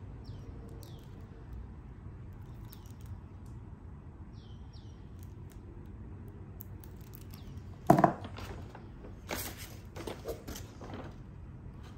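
Stationery handled on a desk: a sharp knock as something is set down about eight seconds in, then a couple of seconds of paper shopping bag rustling and crinkling. Faint bird chirps in the background in the first half.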